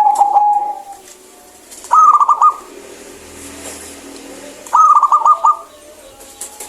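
Zebra dove (perkutut) cooing in three loud phrases: one right at the start, one about two seconds in and one about five seconds in. Each phrase is a quick run of rippling notes.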